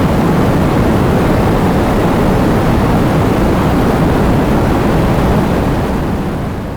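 Heavy rain with gusting wind, a dense steady hiss over a deep rumble, fading out near the end.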